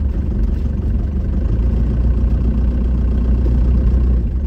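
Ford Transit Mk5 van driving slowly, heard from inside the cab: a loud, steady low rumble of engine and road noise as it rolls over a rough, potholed track.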